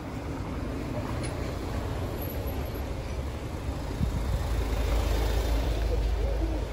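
A Hyundai SUV driving slowly past at close range, its engine and tyres making a low rumble that grows louder and peaks as it passes alongside near the end.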